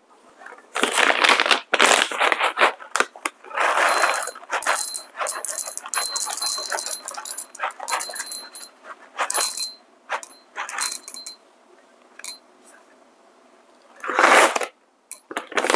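Whole coffee beans poured from a bag into a dosing cup on a scale, rattling in a few short pours.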